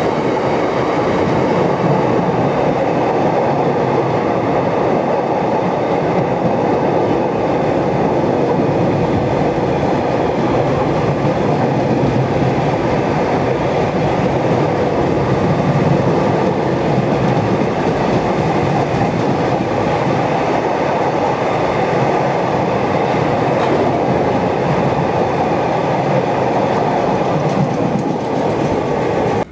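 Long rake of bogie aggregate hopper wagons of a stone train rolling past close by at speed: a loud, steady running noise of steel wheels on rail.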